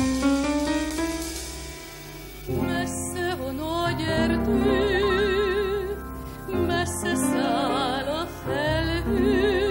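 Operetta song with accompaniment. A rising phrase leads in, then about two and a half seconds in comes a melody with wide vibrato and sliding notes, held on long notes.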